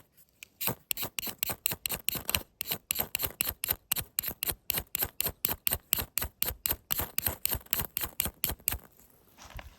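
Rapid, regular sharp strikes, about five a second for some eight seconds, from a hand fire-starting tool being worked to throw sparks into tinder.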